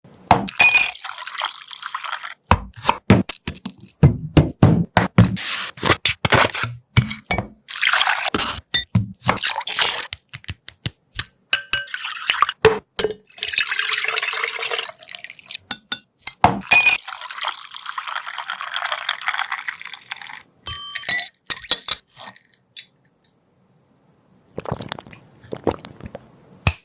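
Kitchen sounds of a drink being made: liquid pouring and splashing, with many sharp clinks and knocks of glassware and utensils, in short bursts that start and stop abruptly. The sounds break off for a moment near the end, then come back briefly.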